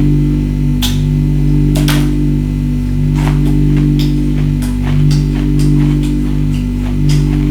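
Background music with steady sustained low tones throughout, over which come about ten irregularly spaced sharp crunches of ice being bitten and chewed.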